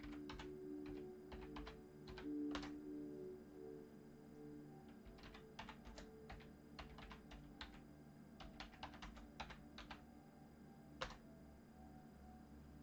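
Quiet typing on a computer keyboard: irregular runs of short key clicks, with one louder click near the end.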